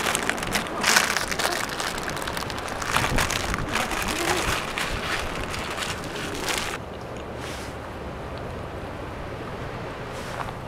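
Wind buffeting the microphone in uneven gusts. It cuts off abruptly about seven seconds in, leaving a quieter, steady low hum.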